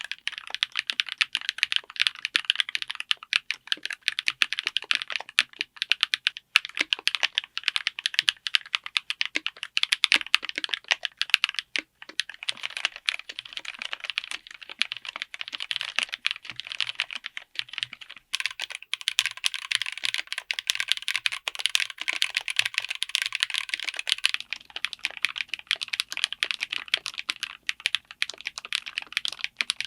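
Continuous fast typing on a mechanical keyboard fitted with linear switches. The sound of the keystrokes changes a few times, roughly every six seconds, as a different switch is typed on.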